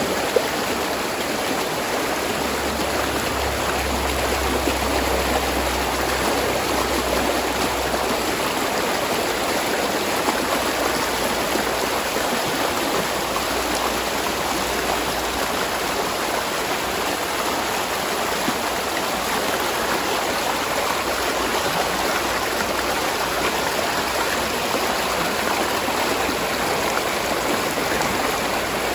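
Spring water running steadily as a small stream.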